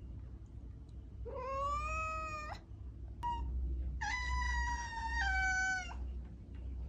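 A cat meowing in two long, drawn-out meows. The first, about a second in, rises slightly in pitch. The second is higher and longer and drops a step in pitch partway through, with a short chirp between them.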